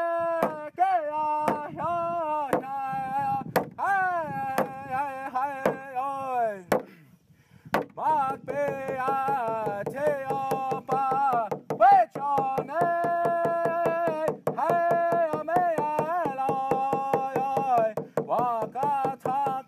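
Traditional Native American song: a voice singing long held notes that fall away at the ends of phrases, over a steady drum beat. The song breaks off briefly about seven seconds in, then the voice and drum come back in.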